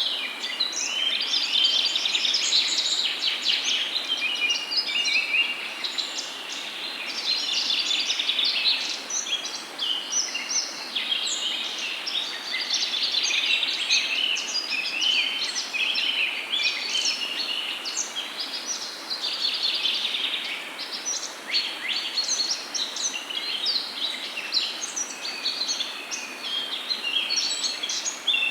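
A dense chorus of many birds chirping and singing at once, a steady stream of short high calls overlapping throughout, over a faint steady hiss.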